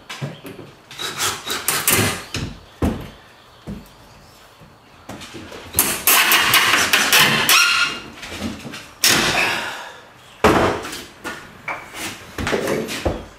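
Hands-on woodworking at a bench: wooden frame pieces knocking and clattering against the bench top, with several loud bursts of a second or so from a DeWalt cordless drill driving screws into the frame.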